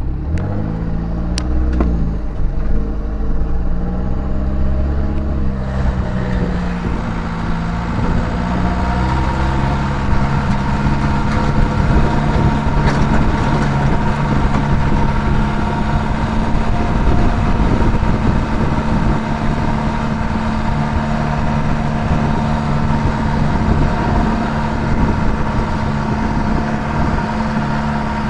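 Isuzu/Holden TF Rodeo being driven: the engine's pitch rises and falls over the first few seconds, then holds steady under a continuous road rumble.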